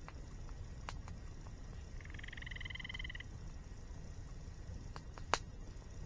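Campfire crackling, with a few sharp pops (the loudest about five seconds in), over a steady low rush of waterfall water. About two seconds in comes a single trilled call from a small animal, lasting about a second.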